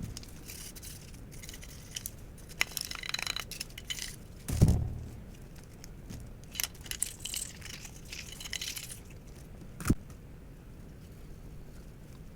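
Metal parts of a CZ Shadow 2 pistol being handled during disassembly and cleaning: small clicks, clinks and rattles, a heavier dull knock about four and a half seconds in, and one sharp click near the ten-second mark.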